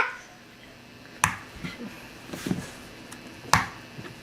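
Two sharp clicks about two seconds apart, with a few faint small knocks between them, like objects being handled.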